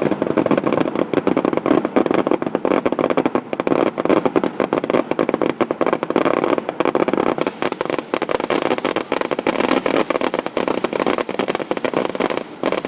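Fireworks grand finale: a rapid, unbroken barrage of overlapping shell bursts and crackles, briefly easing near the end.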